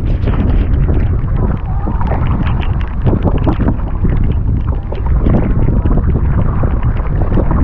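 Wind buffeting the microphone with a heavy rumble, over water splashing and dripping from a kayak paddle as it strokes.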